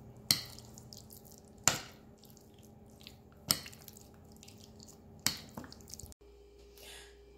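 Four short, sharp wet clicks, spaced roughly a second and a half to two seconds apart, as chicken pieces are turned in a yogurt-and-spice marinade in a bowl.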